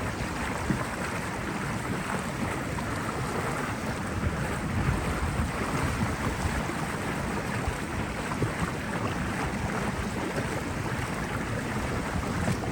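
Steady low rumble of a small open canal tour boat under way, with wind on the microphone.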